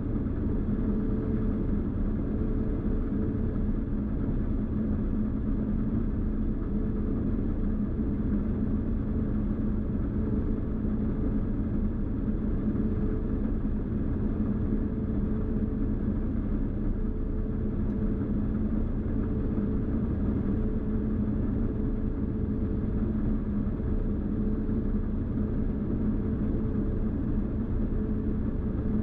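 New Holland TX66 combine harvester running steadily while harvesting wheat, heard from inside the cab: a constant low drone with a steady hum over it.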